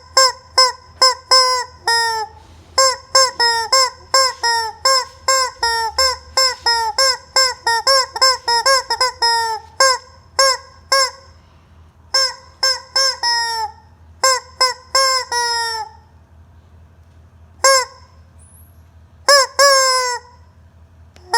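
Squeezable rubber chicken toy honking over and over, in quick runs of about four squeaky honks a second, each dipping in pitch at the end. The runs thin out into short clusters after about ten seconds, and there are a few longer gaps near the end.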